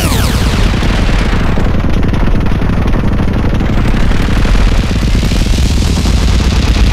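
Soma Pulsar-23 analog drum machine playing a dense, distorted, noisy electronic drum pattern over a heavy low bass drum, its snare fed back through a delay into a churning loop. A falling pitch sweep from the delay dies away at the very start.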